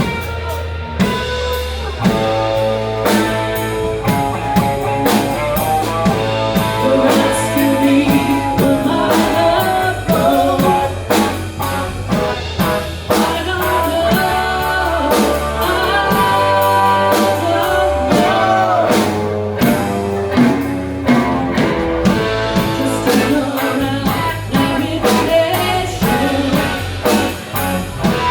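A rock band playing a song with a sung vocal, electric guitar, bass and a drum kit keeping a steady beat.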